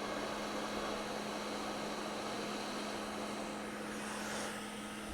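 Hot air rework station blowing a steady hiss with a low hum from its fan, easing slightly near the end.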